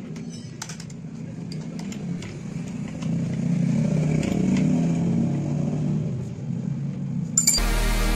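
A motor engine runs in the background, growing louder for a few seconds and then easing off, over a few light metal clinks of a spanner on a router's collet nut. About seven and a half seconds in, electronic music with a steady beat starts abruptly.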